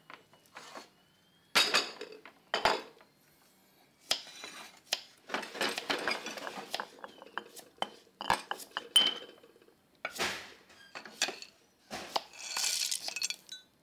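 Kitchen clatter: irregular knocks of a knife on a round wooden chopping board as a cucumber is sliced, with scraping and clinks of bowls being handled.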